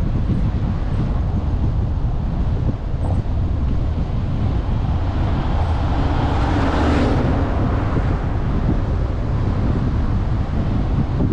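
Wind buffeting the microphone over the steady road noise of a car driving along a town street. An oncoming car swells past about seven seconds in.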